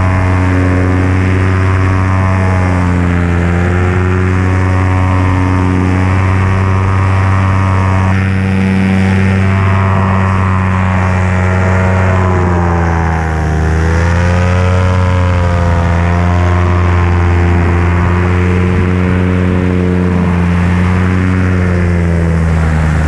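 Engine of a small off-road vehicle driving along a sand track, its pitch rising and falling with the throttle, dropping about thirteen seconds in and then picking back up.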